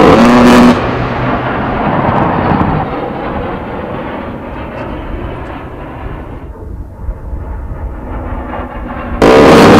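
A-10's GAU-8 Avenger 30 mm rotary cannon firing: a loud buzzing burst ends under a second in, leaving a rolling rumble. A second burst starts near the end.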